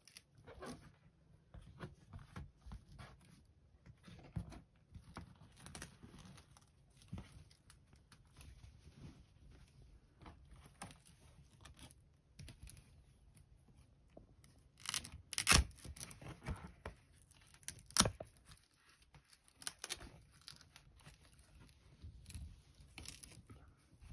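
Light scratching and rustling of a Syrian hamster moving about on fabric and paper, in scattered short scrabbles, with two louder sharp knocks about two-thirds of the way through.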